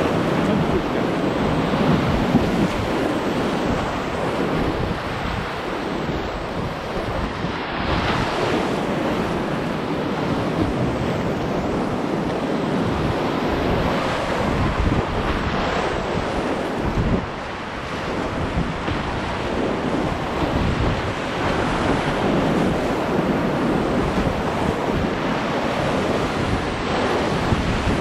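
Whitewater rapids rushing and splashing close around a river kayak as it runs them: a steady, loud rush of churning water that dips briefly about two-thirds of the way through.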